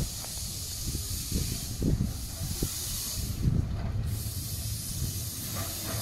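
Small narrow-gauge steam tank locomotive hissing steam as it draws its train into view, with a low uneven rumble beneath. The hiss breaks off for about half a second a little past the middle, then resumes.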